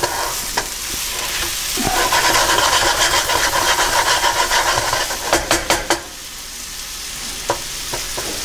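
Sisig mixture of chopped pork and liver sizzling in a skillet as it cooks down in vinegar, while a wooden spatula stirs and scrapes it. A quick run of taps against the pan comes about five seconds in.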